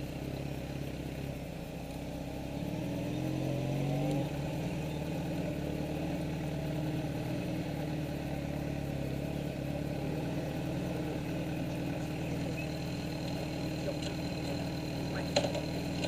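Motorcycle engine running, rising in pitch for a moment a few seconds in and dropping back, then running steadily. A sharp click comes near the end.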